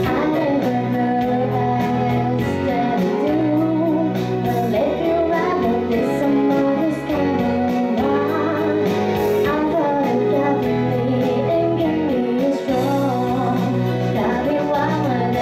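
A woman singing live into a handheld microphone over steady instrumental accompaniment with a regular beat and bass line.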